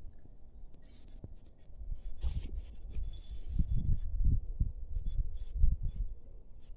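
Wind buffeting the microphone in irregular low rumbling gusts, growing stronger about two seconds in, with scattered light clinks and ticks.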